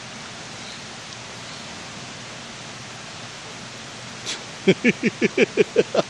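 Steady rush of stream water. About four and a half seconds in, a person bursts into hard laughter, a fast run of short falling 'ha-ha' pulses that becomes the loudest sound.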